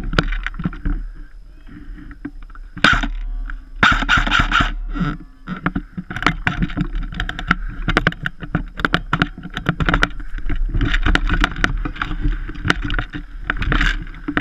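Dense, irregular knocks, clicks and rustling from a body-worn action camera carried by a moving player, with a steady low rumble of wind on the microphone underneath.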